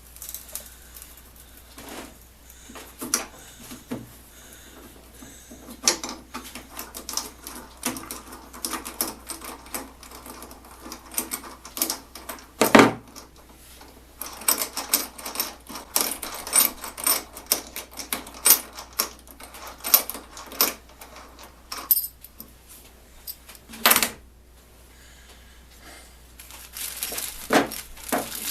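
Irregular metallic clicking and knocking of hand tools working carriage bolts and their hardware, with a busier stretch of rapid clicks after the middle and two louder knocks, one near the middle and one near the end.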